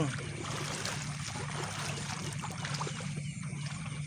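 Shallow water trickling and sloshing, with small scattered clicks, over a steady high-pitched drone.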